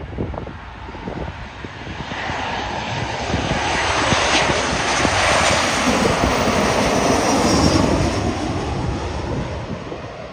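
Boeing 737 jet airliner on final approach, landing gear down, passing low overhead. Its engine noise swells to a peak about halfway through, then fades as the plane moves away, with a faint falling whine near the end of the peak.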